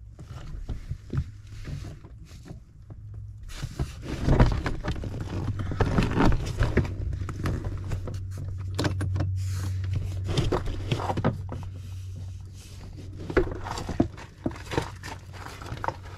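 Irregular knocks, clunks and rustling as a power seat is unbolted and lifted out of a car's interior, with a low steady hum underneath. The handling gets busier and louder a few seconds in.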